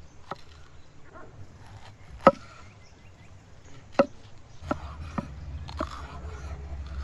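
Large chef's knife chopping a red bell pepper on a wooden cutting board: about six uneven knocks of the blade on the board, the two loudest about two and four seconds in. A low rumble sets in underneath during the last couple of seconds.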